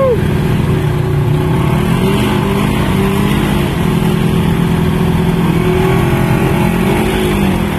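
Side-by-side UTV engine revving hard and held at high revs, its pitch wavering up and down, as the vehicle strains with its tires spinning in deep mud, spraying mud: the pull of a stuck Polaris Ranger out of a mud hole.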